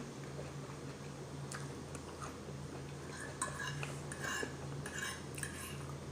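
A fork clinking and scraping on a plate with some chewing, in a string of short clicks from about a second and a half in until near the end, over a steady low hum.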